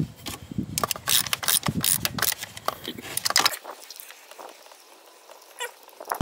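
Ratchet wrench with a 5/16 socket clicking while it backs out the bolt holding an ignition coil on the engine. There is a run of quick clicks for about three and a half seconds, then only a few faint clicks.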